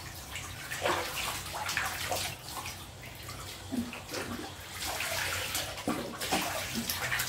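Water splashing and sloshing in a plastic basin as a wet cat is bathed, in irregular splashes.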